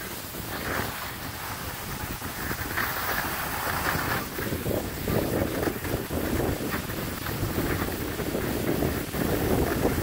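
Wind rushing over the microphone together with the hiss of skis sliding on packed snow, the rush growing louder through the first half.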